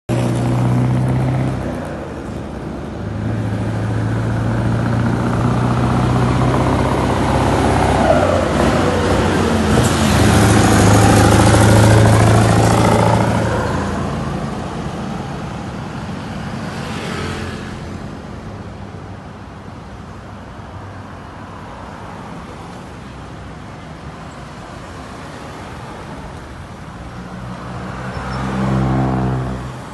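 Road traffic passing: a motorcycle going by at the start, then a heavy semi-trailer truck's engine approaching and passing loudly in the middle. After that, quieter steady traffic, and another vehicle passing close near the end.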